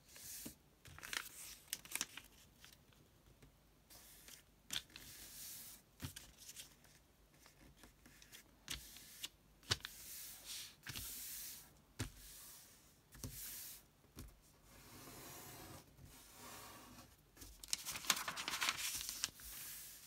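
A sheet of origami paper being folded and creased by hand on a tabletop: irregular rustling and crinkling, sharp crease clicks and the paper sliding, loudest near the end.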